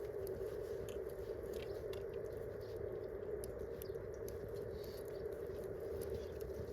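Wood campfire crackling, with scattered small pops and snaps over a steady low hum.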